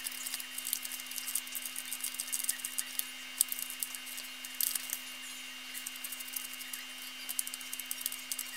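Small plastic spoon stirring and scraping a damp, crumbly candy mixture in a thin plastic tray: quick, irregular scratchy clicks that ease off for a moment a little after the middle. A faint steady hum and high whine run underneath.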